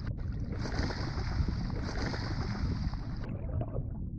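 Underwater ambience: a steady low rumbling wash of water noise with a hiss above it, the hiss fading out in the last second.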